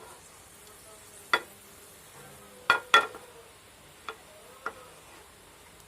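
Metal cookware clinking five times, each clink ringing briefly. The loudest is a close pair about halfway through, and a faint steady hiss runs underneath.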